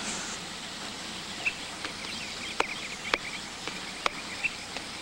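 Woodland outdoor ambience: a steady background hiss with a few short high bird chirps and scattered sharp clicks.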